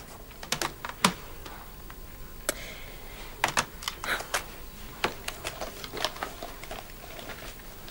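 Irregular clicks of a corded desk telephone being handled and its keypad buttons pressed as a number is dialled, about twenty clicks over several seconds.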